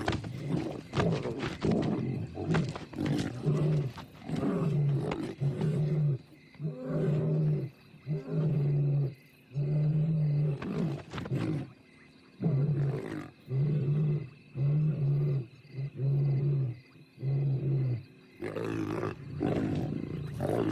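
Lions snarling and growling aggressively at close quarters. A dense stretch of snarls gives way about six seconds in to a run of about a dozen short, steady-pitched growls with brief pauses between them.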